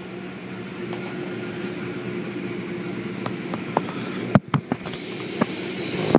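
Automatic car wash machinery heard from inside the car: a steady mechanical hum and wash noise, with hanging cloth wash strips slapping and knocking on the car body in a quick cluster about four and a half seconds in.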